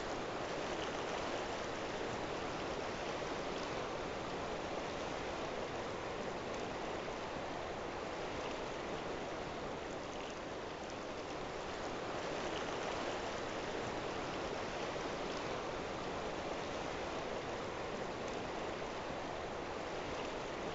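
A river rushing steadily between volcanic rocks: the Rio Grande's continuous flowing-water noise.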